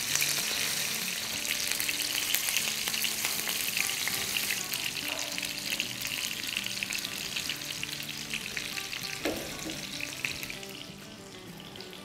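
Chicken mince kababs shallow-frying in hot oil in a nonstick pan: a dense, crackling sizzle as they are turned over with a silicone spatula. The sizzle dies down about ten seconds in.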